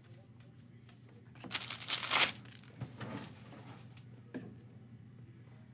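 Foil trading-card pack wrapper crinkling and tearing for about a second, followed by a couple of light taps.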